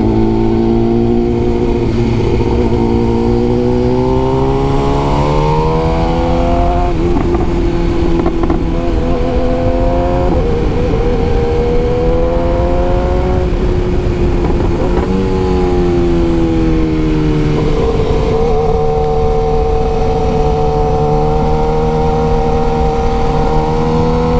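BMW S1000R motorcycle's inline-four engine with an Akrapovic exhaust, running under way. The engine climbs in pitch under throttle and falls away sharply three times in the first half, then holds a fairly steady note while cruising.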